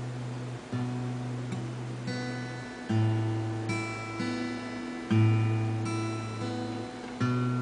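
Alvarez acoustic guitar played by hand in a slow chord progression, a new chord struck about every two seconds with lighter notes picked between.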